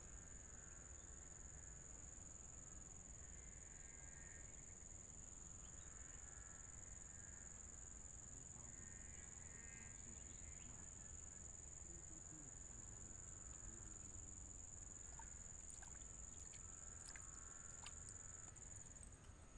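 Faint, steady high-pitched insect chirring that drops away near the end, with a few light ticks shortly before it stops.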